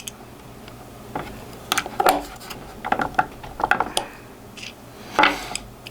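Small metal parts and a 3D-printed plastic jig clicking and clacking as a snap ring and shaft are handled and pressed together, in several short clusters of clicks with a brief scrape near the end.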